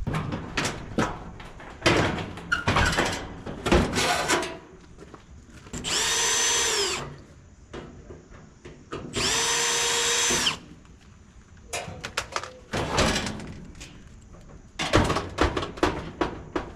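Power drill running in two short bursts, each spinning up and winding down, as screws are backed out of a clothes dryer being taken apart. Between the bursts come many sharp knocks and clanks from parts being handled.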